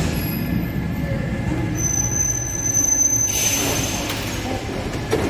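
MF67 Paris Métro train rolling along the platform with a steady low rumble. About two seconds in, a thin, high wheel squeal sets in, and near the middle it gives way to a burst of hiss.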